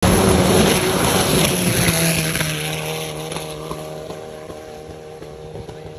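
Car engine of a Thai long-tail racing boat running flat out. The note is loud at first and fades steadily from about two seconds in as the boat draws away.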